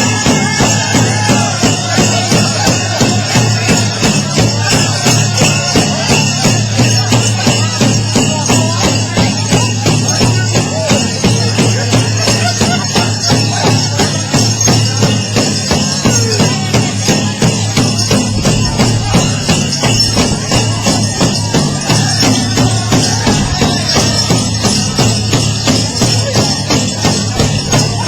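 Powwow drum music: a big drum struck in a steady, fast beat, with constant metallic jingling throughout.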